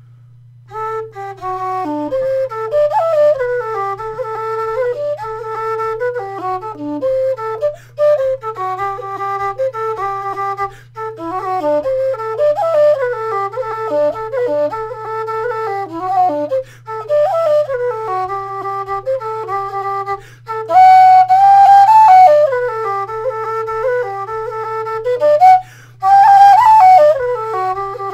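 Low D whistle (a Lindinstruments Qwistle with a 3D-printed headjoint) playing a single jig solo: a quick run of notes that gets louder where the tune climbs higher, about two-thirds of the way through and again near the end.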